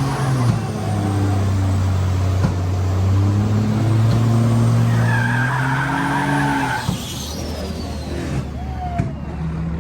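A car's engine held at steady high revs while its tyres spin and squeal in a burnout. The revs drop off about seven seconds in.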